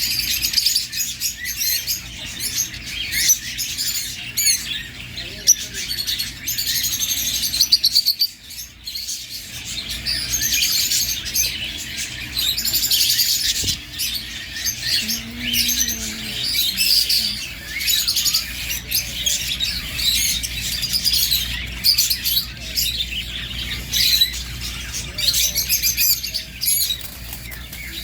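Many small birds chirping and twittering at once, a dense overlapping chorus of high chirps that eases briefly about a third of the way in.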